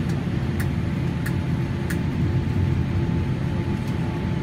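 Steady low rumble of a Boeing 787's cabin noise, with a few faint light ticks.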